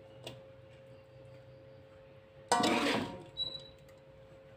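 A spatula scraping and knocking against a metal wok while stir-fried cassava leaves are scooped out onto a plate: a light tap about a quarter second in, then a louder scrape and clank with a short ring about two and a half seconds in, followed by a small click. A faint steady hum runs underneath.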